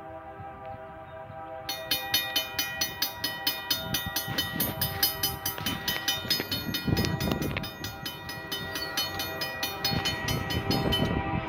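Distant freight locomotive sounding its Nathan K3LA three-chime air horn for the crossing. About two seconds in, the grade-crossing bell starts a rapid, steady dinging over it, and the train's low rumble swells near the end as it draws closer.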